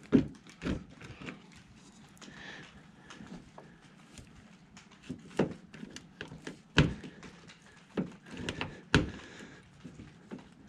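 Hand rivet gun being pumped on a 3/16-inch pop rivet: several sharp clicks and clunks of the handles and jaws gripping and pulling the mandrel, spread out with pauses between; the mandrel has not yet snapped.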